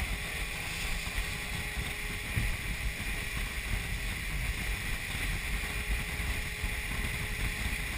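Wind buffeting the microphone on an open motorboat under way, over the boat's steady running noise and water rushing past the hull.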